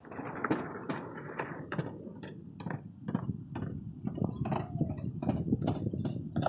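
Chairlift in motion: an irregular string of mechanical clicks and knocks, a few a second, over a low rumble, with a short falling squeak about two-thirds of the way through.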